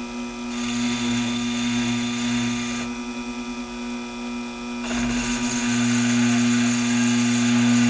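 Taig mini lathe running with a steady motor hum while its tool cuts 304 stainless steel. The high cutting hiss fades for about two seconds midway, then comes back stronger.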